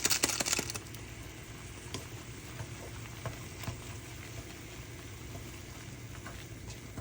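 Snack packaging crinkling loudly for the first second or so, then light scattered clicks and taps of handling.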